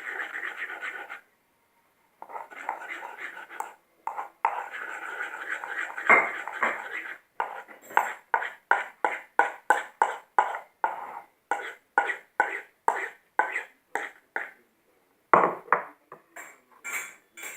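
A spoon stirring and scraping glue with glitter in a container, first in long continuous strokes, then in short quick strokes at about three a second, with two brief breaks.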